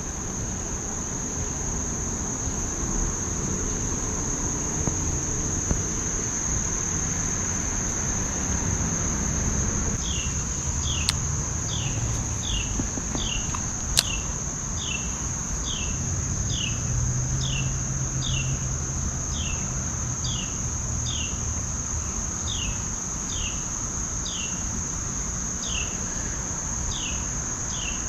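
Insects trilling steadily at a high pitch. From about ten seconds in, a bird repeats a short falling chirp roughly once a second, over a low rumble, with two sharp clicks a few seconds apart.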